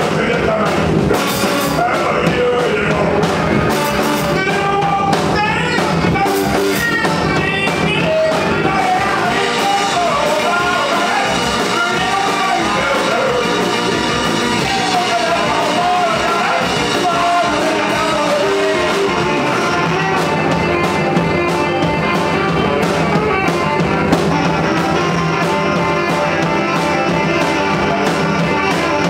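A small band playing a song live, with electric guitar, drum kit, saxophone, cello and keyboard, and a singer's voice.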